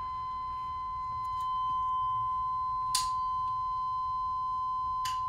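A steady, high, unbroken electronic tone from the dashboard warning buzzer with the ignition switched on, and two sharp clicks about three and five seconds in. The engine is not cranking.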